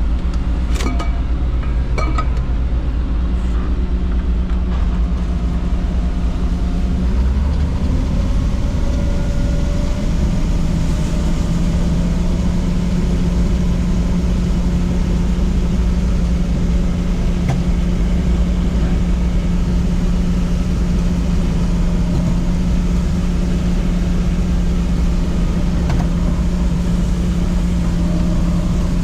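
Combine harvester engine running steadily, speeding up to a higher, steady pitch about seven to ten seconds in. A few sharp clicks near the start.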